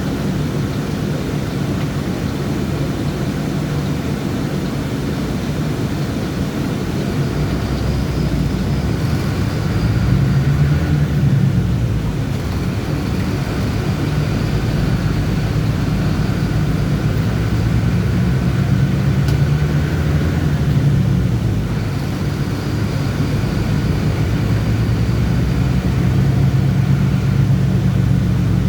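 Diesel bus engine running while the bus is driven, its low drone rising and falling in pitch several times as it accelerates and eases off.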